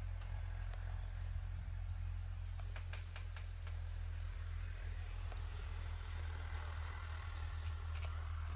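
Outdoor background: a low steady rumble with a few faint clicks about three seconds in and faint bird chirps.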